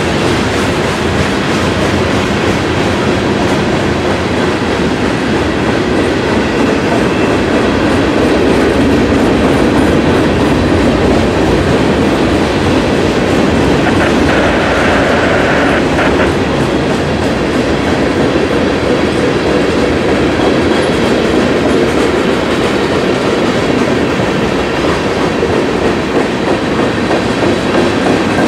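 CSX freight train rolling past, its wheels clacking steadily over the rail joints as the cars go by. A brief high squeal comes about halfway through.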